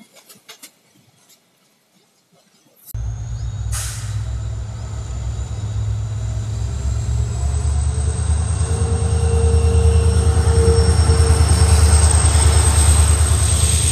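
A WDP4D diesel locomotive's EMD two-stroke V16 engine runs as it approaches and passes close by, hauling passenger coaches. Its low rumble mixes with wheel and rail noise. The sound starts suddenly about three seconds in, after a few faint clicks, and grows louder as the locomotive draws level.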